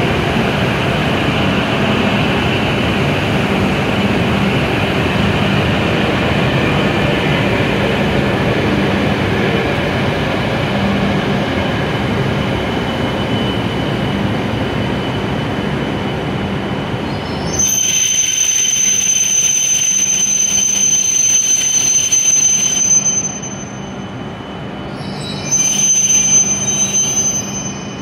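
Hokuriku Shinkansen W7 series train moving slowly alongside the platform, giving a steady rumble of wheels and running gear. About two-thirds of the way in, the rumble cuts off suddenly and a steady high-pitched whine takes over. The whine drops away and comes back briefly near the end.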